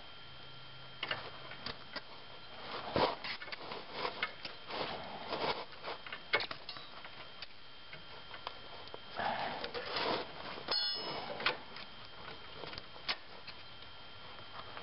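Scattered small clicks and taps of hand tools and a steel brake line being handled and bent, with a short metallic ring about two-thirds of the way through.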